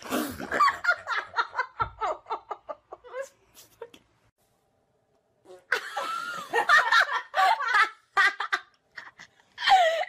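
A young woman laughing hard in quick repeated bursts that trail off over a few seconds. A second fit of laughter starts after a short pause.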